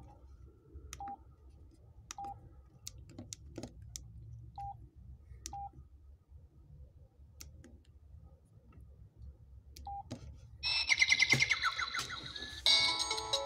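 Samsung SGH-S500 mobile phone: short key beeps, all at the same pitch, with light button clicks as its menu is stepped through, then about ten seconds in a bright ringtone melody plays from its speaker and switches to a different melody near the end.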